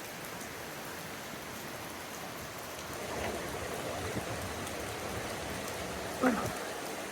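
Steady hiss of water, swelling slightly partway through, with one brief louder sound about six seconds in.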